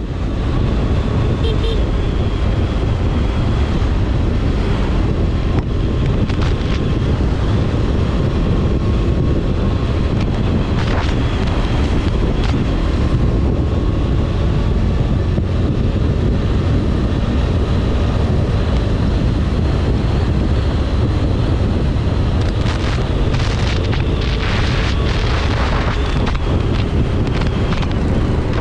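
Wind buffeting the microphone of a sport motorcycle cruising at highway speed, a steady low rush with the engine's faint even hum underneath. It swells briefly a few times.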